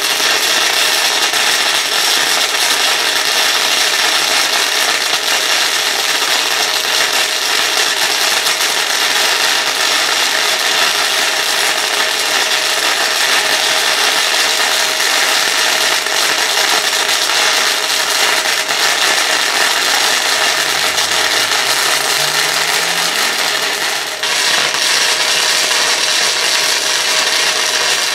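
Electric welding arc running continuously while a bead is laid, a steady loud crackling sizzle with spatter. The arc breaks briefly near the end and strikes again.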